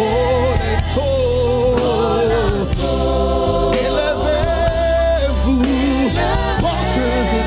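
Gospel choir and lead singer singing long held notes over instrumental accompaniment with a steady bass.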